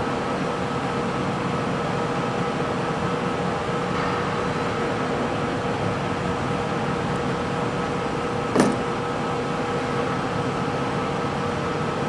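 Steady machine hum with several constant tones. About eight and a half seconds in there is one sharp snap, like small cutters snipping through a wire.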